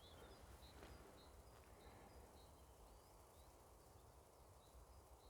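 Near silence, with a small bird faintly repeating short, high chirps every half second or so.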